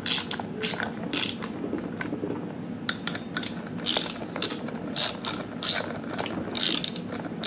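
Ratchet socket wrench clicking in quick runs of short, sharp clicks as it turns bolts in by hand, with a brief lull about two seconds in.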